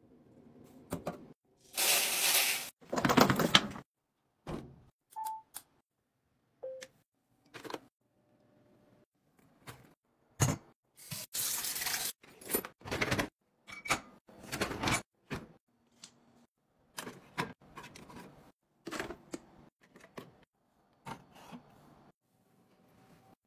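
A string of short household chore sounds, separate clicks, knocks and handling noises, with water running from a pull-down kitchen sink faucet into a mug about halfway through.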